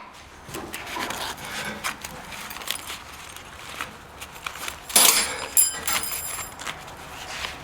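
Metal pieces clinking and being handled, with scattered light knocks and a loud metallic clank about five seconds in that rings briefly with high tones.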